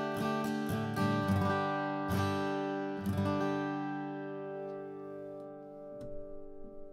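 Atkin Essential OM acoustic guitar strummed with a BlueChip TD35 pick: a run of quick chord strums, then the last chord left ringing and slowly fading over about three seconds. A few light handling clicks come near the end.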